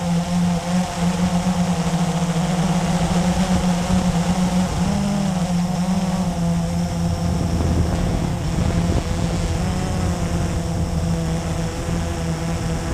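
Blade 350QX quadcopter's brushless motors and propellers humming steadily, heard from the camera mounted on it. The pitch rises briefly about five seconds in and wavers through the middle as the quad speeds up and turns.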